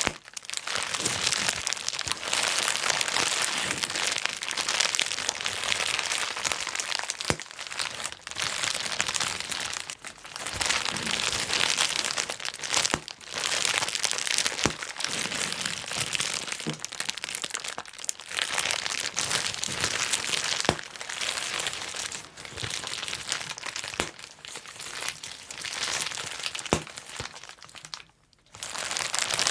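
Plastic bubble wrap being twisted and crushed by hand, a dense crackle of many small pops coming in runs of a few seconds with brief pauses between, and a short silence near the end.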